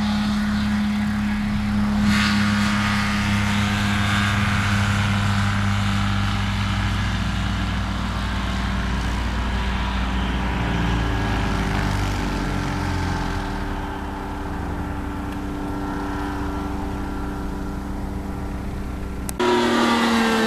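A light aircraft's piston engine and propeller run steadily at high power during a takeoff, with the engine note shifting a little partway through. Near the end the sound cuts to a float-equipped light plane passing overhead, its engine note dropping in pitch as it goes by.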